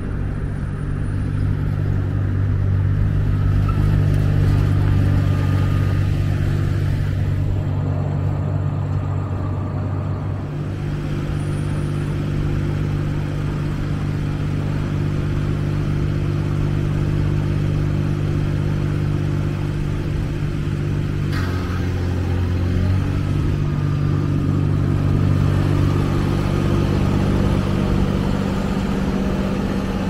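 Ride-on sidewalk litter vacuum's engine and suction fan running with a steady, loud drone that shifts in pitch slightly about two-thirds of the way through, over passing traffic.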